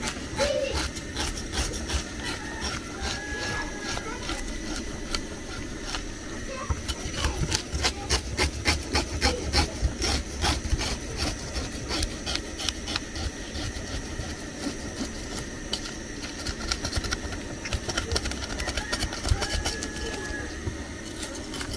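A kitchen knife scraping the scales off a fresh croaker fish on a wooden cutting board: a run of quick rasping strokes, densest about halfway through.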